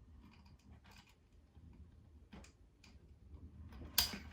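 Small plastic clicks and taps as a mini figure is handled and pressed into a toy starship's cockpit, with one sharper click about four seconds in.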